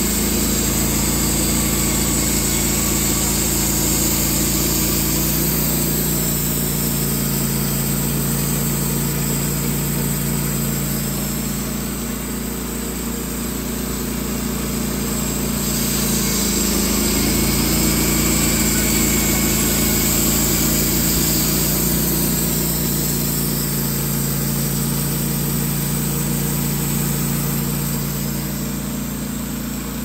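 Wood-Mizer band sawmill running steadily, its engine and band blade sawing a cedar log stood on end into thin round slices.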